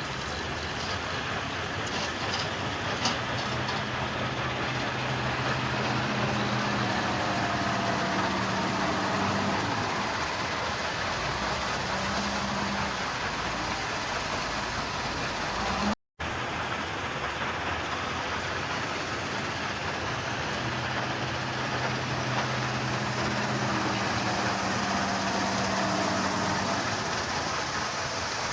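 Heavy machinery running with a steady rumble, engine hum rising and falling at times, and some metallic clatter near the start.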